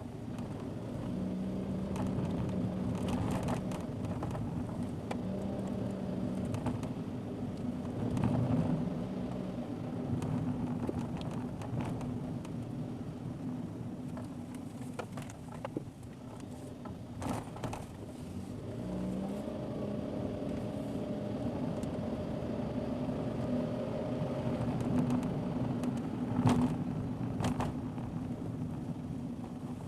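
A car engine running steadily under tyre and road noise, its pitch shifting as the engine speed changes, with scattered sharp knocks and rattles, the loudest just past halfway and near the end.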